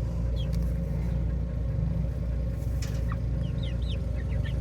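Chickens clucking, with short high chirps scattered through, over a steady low hum.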